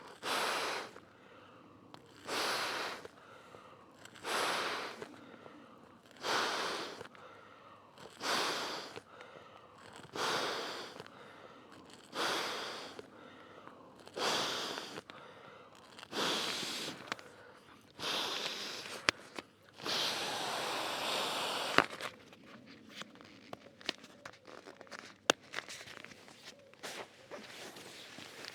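Air mat being blown up by mouth: a regular series of strong breaths, about one every two seconds. Then a longer rustle and scattered small clicks and rustling.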